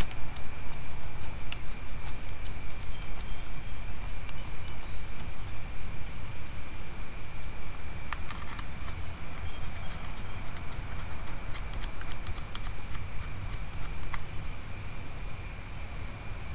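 Light clicks and taps of small metal carburettor parts being handled and fitted by hand, scattered through, with a quick run of clicks about two-thirds of the way in. Behind them a steady high-pitched drone, a few short high chirps and a low background rumble.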